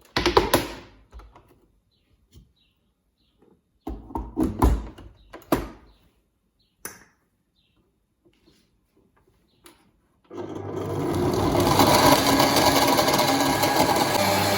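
A few knocks and clatters of a blender jar and lid being handled. About ten seconds in, an electric countertop blender starts and runs steadily and loudly, blending soaked oats, pitted dates and water into oat milk.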